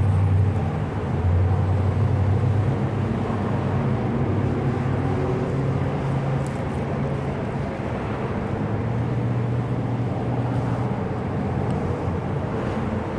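A motor vehicle's engine running nearby: a steady low rumble whose pitch drifts a little, louder in the first few seconds and again about nine seconds in.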